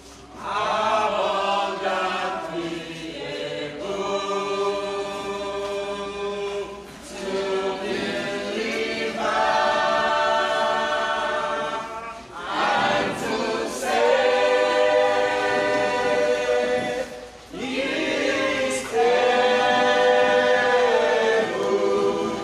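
A group of voices singing together without instruments, in long held phrases with short breaks between them.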